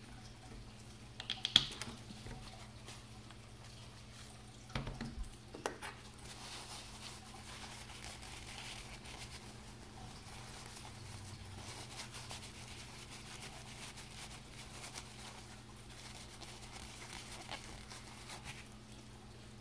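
A paper towel rustling and crinkling as it rubs over a metal watch case and expansion band, wiping it clean. Before that, a few sharp clicks and then several knocks as the watch is handled on a wooden table; a faint steady low hum runs underneath.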